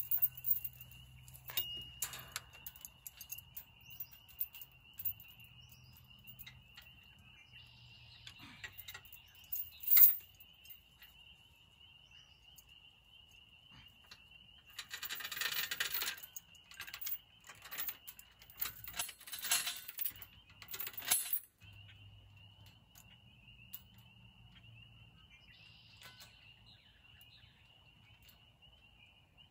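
Scattered metallic clinks and knocks of hand tools and parts as a sickle bar mower is bolted onto a Farmall Super C, the sharpest knock about ten seconds in, with two longer spells of clatter a little past halfway. A steady high insect drone runs underneath.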